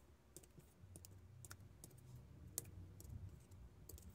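Faint, irregular clicks of a pokey tool (awl) pricking holes through a paper template into a foam mat, the sharpest one a little past halfway.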